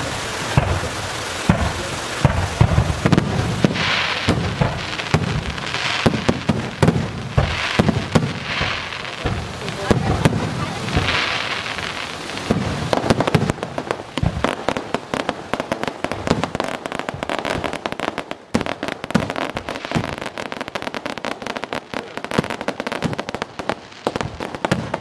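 Aerial fireworks going off overhead: repeated bangs and crackling bursts, thickening into a dense rapid crackle in the second half.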